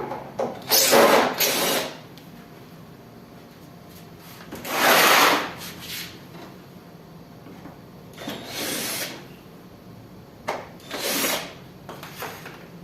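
Cordless drill-driver backing screws out of a window air conditioner's casing, in several short runs about a second each, the longest and loudest about five seconds in.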